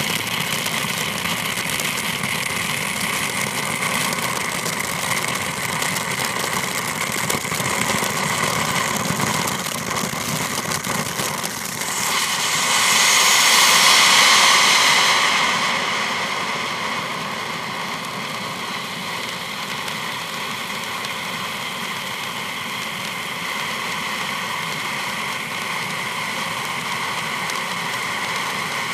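Ground fountain firework burning with a steady rushing hiss and fine crackle. It swells louder for a few seconds near the middle as a bright white flare burns, then settles into a crackling spray of silver sparks.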